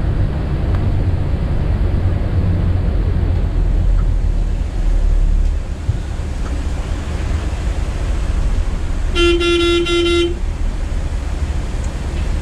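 Steady low rumble of a Volvo B9R multi-axle coach's diesel engine and road noise, heard from inside the cabin while driving. About nine seconds in, a vehicle horn sounds once for about a second.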